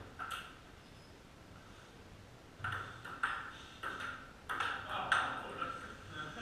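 Table tennis rally: the ball clicks sharply off paddles and table, one hit about every 0.6 seconds from about two and a half seconds in, after a single hit near the start.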